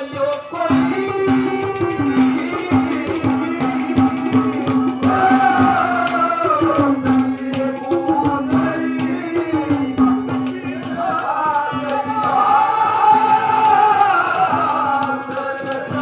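Live Indian folk stage music: a steady held note under a gliding melody line, with quick hand-drum strokes throughout.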